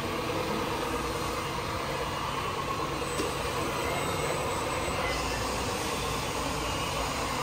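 Radio-controlled scale Scania tipper truck running with a steady mechanical hum and a faint whine.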